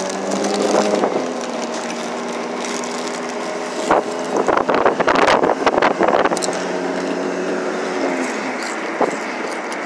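A pickup truck running down the road, heard from its open bed: a steady engine hum under a constant rush of wind and road noise. The rushing grows louder and choppier for a few seconds in the middle, and the engine hum fades out near the end.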